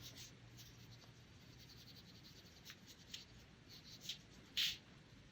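Faint, soft swishes of a paintbrush stroking watercolor paint onto paper, a few brief strokes in the second half.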